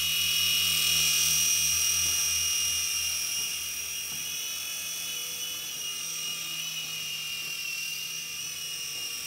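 Sky Rover Vigilante toy RC helicopter in flight: its small electric motors and rotors give a steady high-pitched whine over a low hum. It is a little louder in the first couple of seconds.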